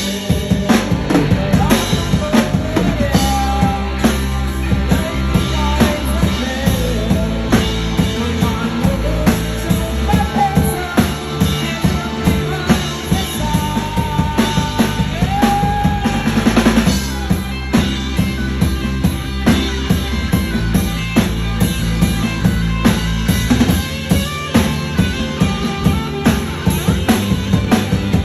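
Rock music: a drum kit and bass keep a steady beat under a band arrangement.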